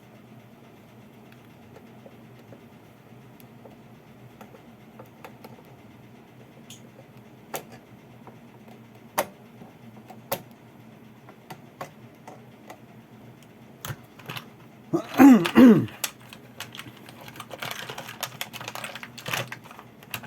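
Scattered light clicks and taps of plastic control knobs being pushed back onto a public address amplifier's shafts, over a faint steady hum. About fifteen seconds in comes one loud, short sound that falls in pitch, followed by a couple of seconds of scratchy rustling.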